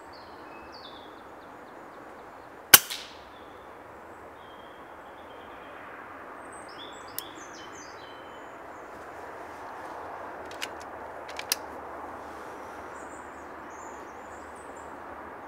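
A single sharp shot from a scoped FX air rifle about three seconds in, with a brief ringing tail, over steady woodland ambience with small birds chirping. A few light clicks follow later.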